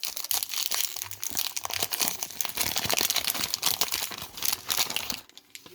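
Wax-paper wrapper of a 1991 Topps baseball card pack crinkling and tearing as it is opened by hand, a dense crackle that stops about five seconds in.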